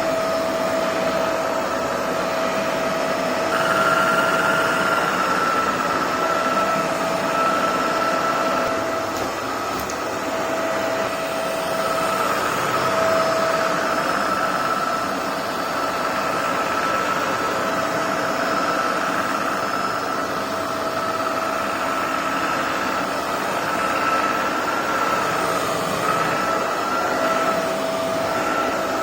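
Kärcher FC5 hard-floor cleaner running: a steady whir from its motor with a faint whine that wavers slightly and drops out now and then.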